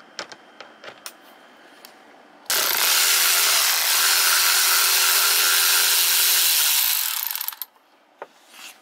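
Cordless electric screwdriver with a T20 Torx bit running steadily for about five seconds, backing a screw out of a plastic trim panel, then winding down. Before it starts there are a few light clicks as the bit is set into the screw head.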